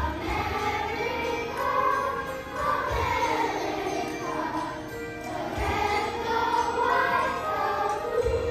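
Children's choir singing a song together.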